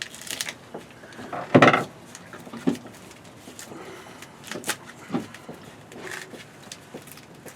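A big screwdriver prying and tearing at a coconut's fibrous husk: scattered scrapes, creaks and sharp knocks, with a louder tearing burst about a second and a half in.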